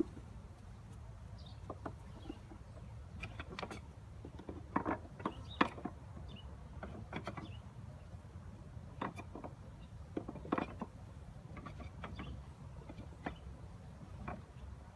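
Irregular knocks and clunks as a package of bees is knocked and shaken to empty the bees into a top bar hive, heaviest in two clusters about five and ten seconds in, over a steady low rumble.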